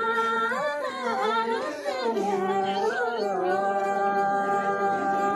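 Unaccompanied singing of a sung melody that glides between notes, then settles into a long held note a little past halfway.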